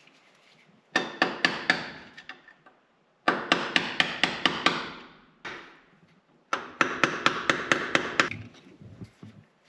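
Three bursts of quick hammer blows, about five a second and half a dozen or more per burst, struck at the front of a Turbo 350 transmission where the torque converter meets the pump.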